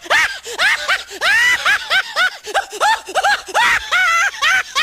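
Comedy meme sound effect of high-pitched, squeaky giggling: short arching syllables, about three a second.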